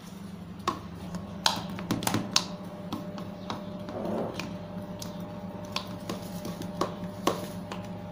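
Spatula pressing and patting a crumbly mawa-and-coconut mixture flat in a steel platter, with about a dozen light taps and clicks at irregular intervals over a steady low hum.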